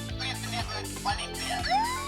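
The sound module of a 1:24-scale toy UAZ Bukhanka police van plays an electronic tune with a steady beat. About one and a half seconds in, a siren wail starts, rising in pitch.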